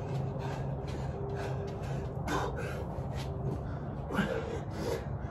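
A person breathing hard from exertion during burpees, with quick puffs of breath and a couple of short grunts.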